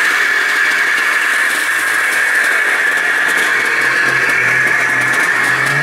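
A snowmobile engine running steadily nearby with a loud, high whine.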